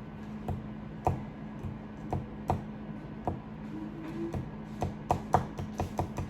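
Irregular sharp plastic clicks and taps of small objects being handled on a desk, coming faster in the second half, over a steady low hum.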